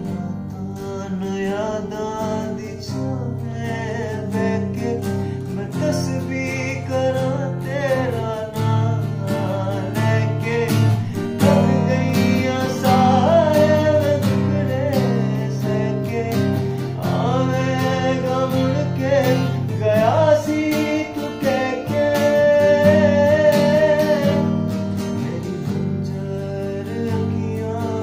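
A man singing a slow song to his own acoustic guitar, strummed chords under long, bending vocal phrases.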